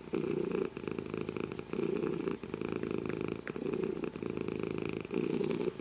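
Domestic cat purring steadily, the purr swelling louder and easing softer in a regular cycle about every second and a half.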